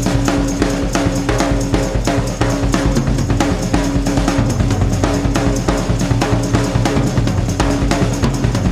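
Music with a steady drum kit beat, bass drum and snare.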